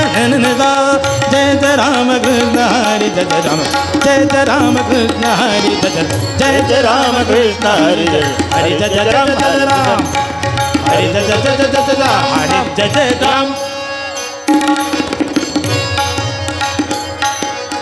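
Indian devotional bhajan music: a male voice sings long ornamented phrases with gliding pitch over steady held drone notes and tabla. About fourteen seconds in the music drops for a moment, then the drone and drums come back in.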